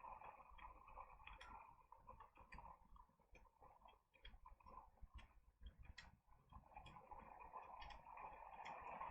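Faint, irregular light clicks and taps of tarot cards being handled and turned over one by one, over a quiet steady background hiss.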